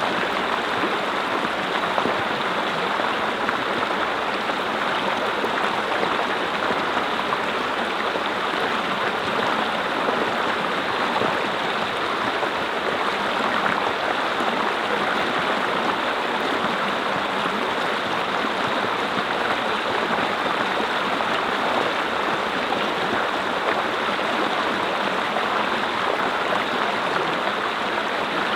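Mountain stream flowing steadily over rocks, a continuous rushing and babbling of water.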